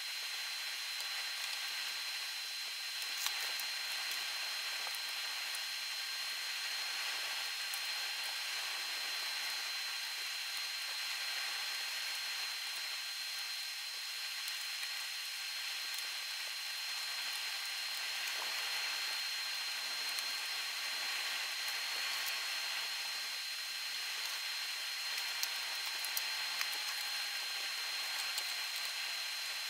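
Steady hiss with a constant thin high whine, and a few faint light clicks of a small screwdriver and screws on a graphics card, about three seconds in and again near the end.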